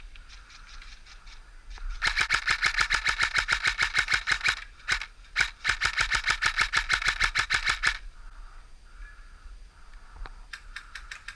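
Airsoft electric rifle firing on full auto: two long bursts of rapid, evenly spaced shots, the first starting about two seconds in, with a short break before the second, which stops about eight seconds in. Fainter bursts from another airsoft gun come near the start and near the end.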